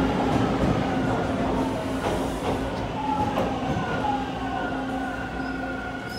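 Toronto TTC T1 subway train slowing to a stop at the platform: the steady rumble of the cars with a whine that falls in pitch as the train brakes.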